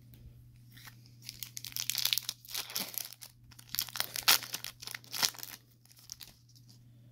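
A foil trading-card pack being torn open and crinkled by hand, in irregular crackling rips from about a second in until about five and a half seconds, loudest just past the middle.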